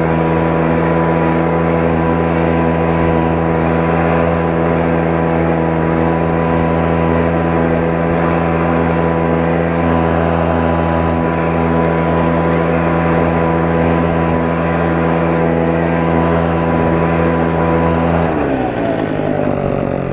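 Commercial walk-behind lawn mower engine running steadily at full throttle while mowing, then slowing down with a falling pitch near the end as it is throttled back or shut off.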